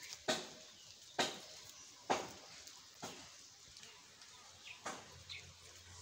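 Footsteps crunching on dry leaf litter on a forest floor, about one step a second. Two short faint bird chirps come near the end.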